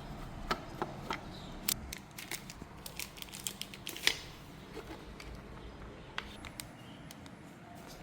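Small hard parts being handled: irregular light clicks and taps, over a faint low hum that stops about two seconds in.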